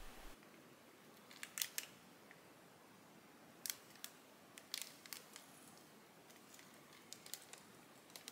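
Faint, sparse crinkles of a clear plastic bag being held and shifted in a glass of water: a few short crackles about a second in, a couple more around the middle, and a small cluster near the end.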